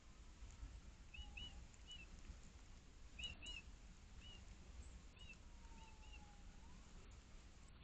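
Faint small-bird chirps: short, high chip notes repeating about every half second, often in quick pairs, over a low steady rumble.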